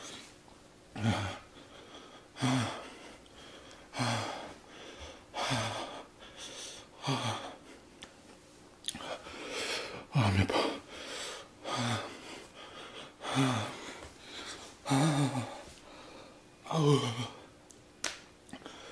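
A man breathing hard through his mouth after eating the Paqui One Chip Challenge chip. He pushes out forceful breaths, each with a short voiced groan, about one every second and a half, as the chili burn sets in.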